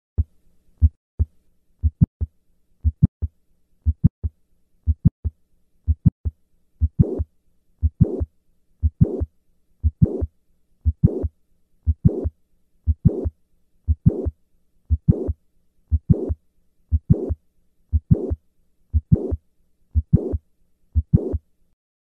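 Recorded heart sounds of mitral valve prolapse at about one beat a second: the first and second heart sounds, with a late systolic murmur joining from about seven seconds in and running up to the second sound of each beat.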